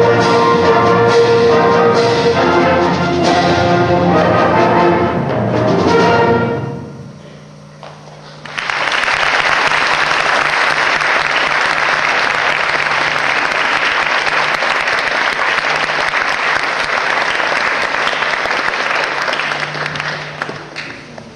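School concert band of clarinets, saxophones and brass playing its closing bars and releasing the final chord about six and a half seconds in. After a short lull, an audience breaks into steady applause that thins out near the end.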